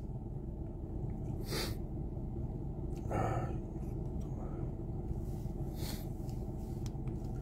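Three short breaths or sniffs close to the microphone, about one and a half, three and six seconds in, over a steady low hum in a pickup's cabin.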